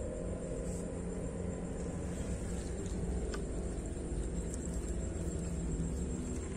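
A steady low rumble with a faint hum in it, over a thin, steady high-pitched drone.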